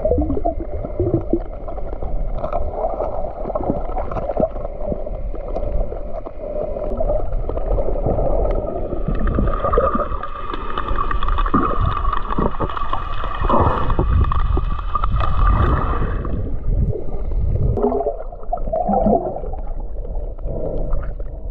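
Underwater sound picked up by a submerged camera: a muffled low rumble of moving water with gurgling and many scattered clicks. A steady higher hum joins from about ten to sixteen seconds in.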